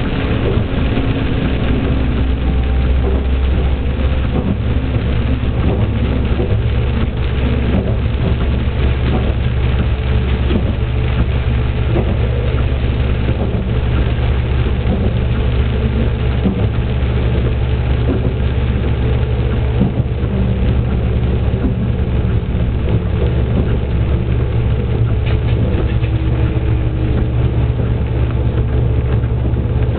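Diesel railcar running steadily along the line, its diesel engine droning under the noise of the wheels on the rails.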